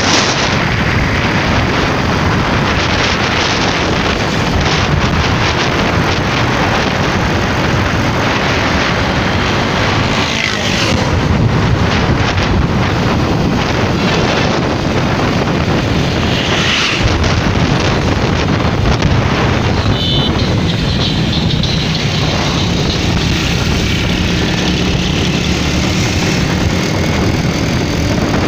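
Motorcycle riding along a road at speed: steady wind rushing over the microphone, with the bike's engine running underneath.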